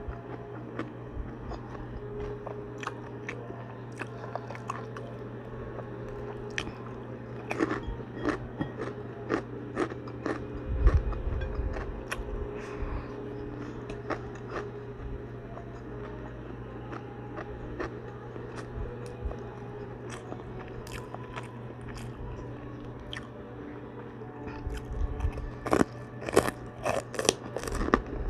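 Close-up chewing and crunching of crispy chicharon (fried pork rinds): a run of sharp crackling bites that come thickest near the end, over a steady low hum.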